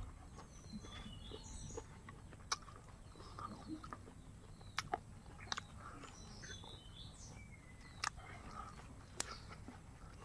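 Birds chirping in the background, with a handful of sharp clicks and smacks from a man eating with his hand, loudest near the middle and late in the stretch.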